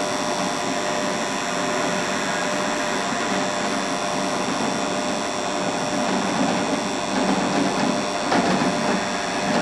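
Drill press running steadily, its twist bit boring into a block of hardwood held in a machine vise: an even motor hum with the bit cutting the wood.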